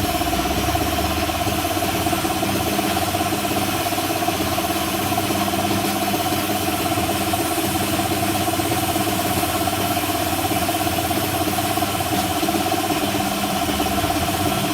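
A motor running at a steady speed, giving an unchanging hum with a few fixed pitches.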